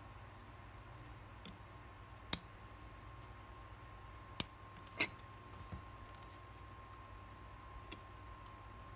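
Steel watchmaker's tweezers clicking and tapping against the small metal parts of a watch movement during reassembly: a few sharp metallic clicks, the two loudest about two and four and a half seconds in, then a few faint taps.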